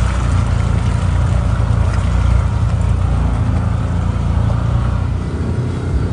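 Side-by-side UTV engine running steadily with a low drone, easing off slightly near the end.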